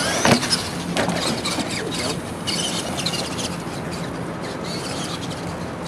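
Radio-controlled monster truck driving: its motor whines, rising and falling in pitch as it revs. A sharp knock comes about a third of a second in, and lighter clicks are scattered through the rest.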